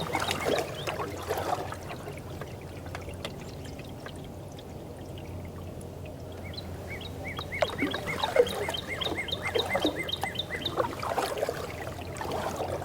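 Canoe paddle strokes gurgling and dripping in the water near the start and again around the middle and near the end. From about six and a half seconds in, a northern cardinal sings a quick run of repeated slurred whistles for about three seconds, over a steady low hum of distant road noise.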